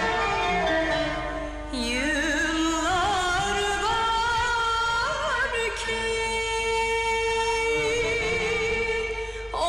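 Turkish classical şarkı in makam Nihâvend: an instrumental passage gives way, about two seconds in, to a woman's voice singing ornamented, wavering lines, which settles into a long held note in the second half.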